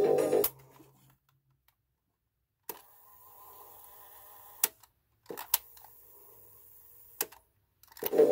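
Cassette music playing from a Sony Walkman cuts off about half a second in. Then come several sharp plastic clicks from the Walkman's transport buttons, with a faint sound between them, and the music starts again near the end.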